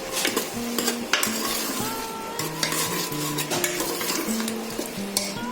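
A spoon stirring and scraping through mutton masala in a cooking pot, with repeated scrapes over a steady frying sizzle.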